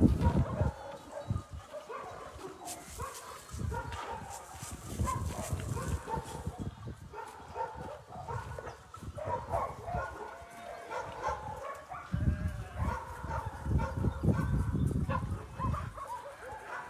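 Many dogs barking and yipping at once, their calls overlapping without pause.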